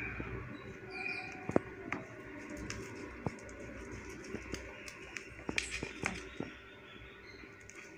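A knife scoring soft besan burfi in a steel plate, with scattered light clicks and taps as the blade meets the metal, the sharpest about a second and a half in. Birds chirp faintly in the background.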